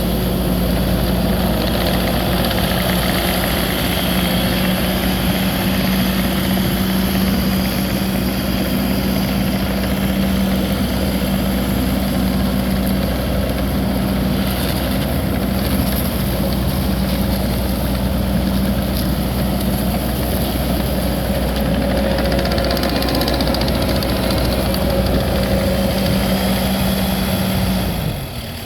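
Kubota SVL75-2 compact track loader's four-cylinder diesel engine running steadily with an even drone. The drone drops away just before the end.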